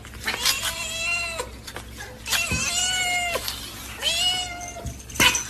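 A domestic cat meowing: three long, drawn-out meows of about a second each, with a sharp knock near the end.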